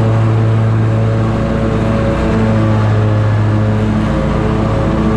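Scag Tiger Cat zero-turn mower running at a steady engine speed while cutting grass with its 61-inch deck: a constant, unchanging engine drone with the whir of the deck blades.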